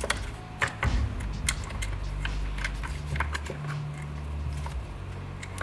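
Hands handling a polymer airsoft rifle: scattered plastic clicks and taps as battery wires are pushed into the stock, over a low steady hum.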